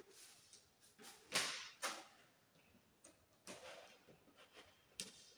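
Insulated electrical wires being pulled through PVC conduit by gloved hands: a few brief swishes and rustles, the loudest about a second and a half in, and a sharp click near the end.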